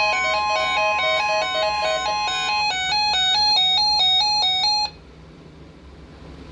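Bright electronic melody of rapidly stepping notes, like a chime or music box, over a steady tone near 1 kHz. The tone is typical of the NOAA Weather Radio 1050 Hz warning alarm and stops about two and a half seconds in. The melody cuts off suddenly near five seconds in, leaving a low hum and hiss.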